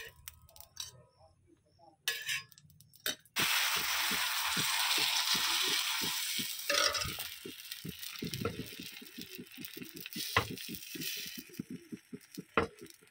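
Thin rice-flour chilla batter hitting a hot oiled tawa: a sudden loud sizzle a few seconds in that slowly fades over several seconds into soft crackling and popping as the thin pancake cooks. A few light metal clinks of a spoon on the pan come before it.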